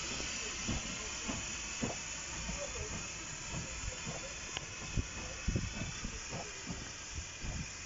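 Hudswell Clarke 0-6-0 saddle tank steam locomotive working a passenger train, with a steady hiss of steam and irregular low exhaust beats about two a second.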